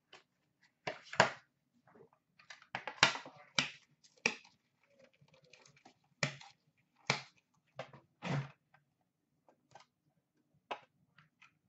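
A trading-card box being opened by hand and clear hard-plastic card cases taken out and set down on a glass countertop: scattered clicks, taps and rustles, the sharpest about a second in and between about six and eight and a half seconds in.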